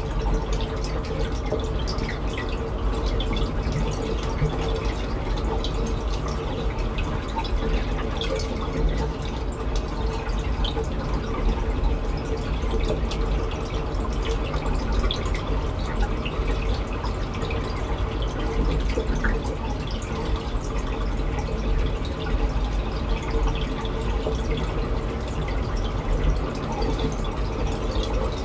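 Steady trickling and dripping of water from a reef aquarium's circulation, many small drips and splashes, over a faint steady hum.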